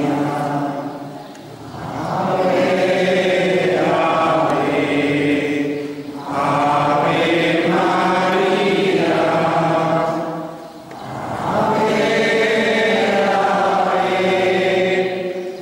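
A group of voices chanting a prayer together in long, sustained phrases, with short pauses for breath about every four to five seconds.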